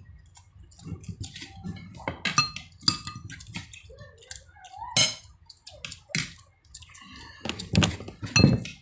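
Close-up eating sounds: wet chewing and lip smacks, mixed with light clicks and clinks of fingers and dishes on a plastic plate, coming in irregular bursts and loudest near the end.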